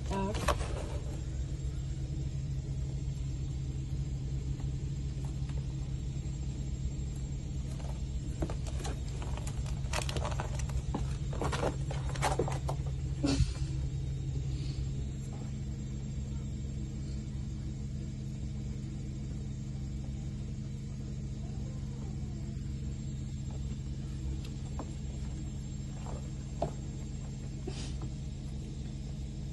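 A steady low mechanical hum and rumble, like a running motor or appliance, with a cluster of short clicks and knocks between about eight and fourteen seconds in.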